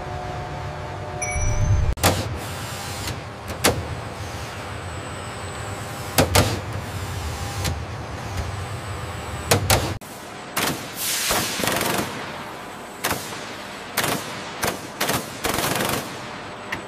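Factory machinery sounds: a steady low hum with a sharp click or knock every second or two. About ten seconds in, the hum drops away and short bursts of hiss follow.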